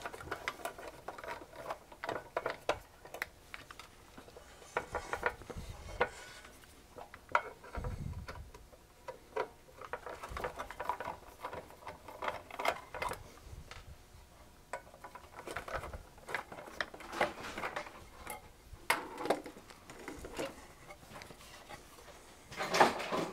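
A screwdriver backing small screws out of a metal mixer case: irregular metal clicks, scrapes and rattles of screws and tools on the workbench, with a louder knock near the end as the mixer is handled on the bench.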